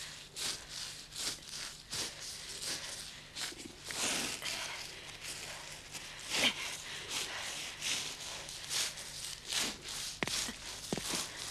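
Hands and knees crawling over a woven mat: a steady run of dry rustling pats and scrapes, about two a second, some louder than others.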